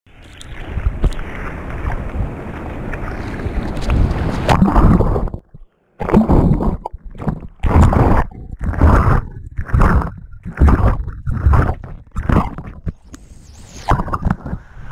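Sea water rushing and splashing over a wrist-mounted camera riding a surfboard through whitewater. About six seconds in, after a brief gap of silence, this gives way to rhythmic splashing bursts, a little under two a second, as the paddling arm plunges the camera in and out of the water.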